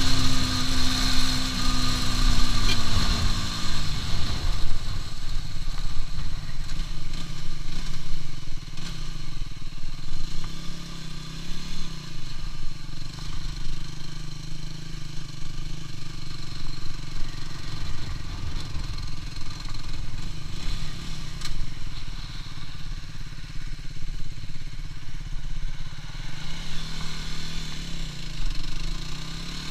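Aprilia RS4 125's single-cylinder four-stroke engine heard on board at road speed, under heavy wind rumble on the microphone. The engine note falls over the first few seconds as the bike slows, and climbs again near the end as it accelerates.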